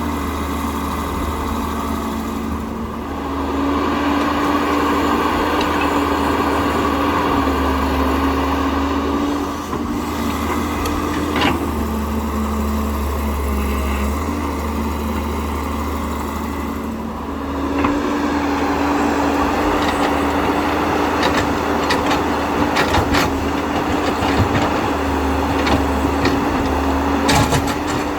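Huina 1592 RC excavator's electric motors and plastic gearboxes whirring as it is operated, stopping and starting several times, with a run of clicks near the end.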